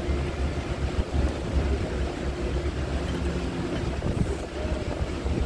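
Motor launch's engine running steadily under way, a low drone, with wind buffeting the microphone.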